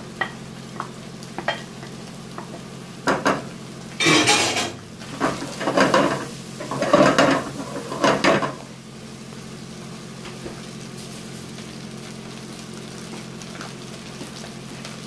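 Wooden spatula stirring boiled rice into frying vegetables in a pot: a few light taps at first, then loud scraping and knocking against the pot from about three to eight seconds in, over a steady sizzle.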